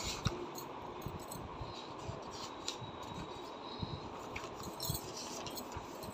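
Paper pages of a textbook being turned and handled, with light rustles and scattered soft clicks.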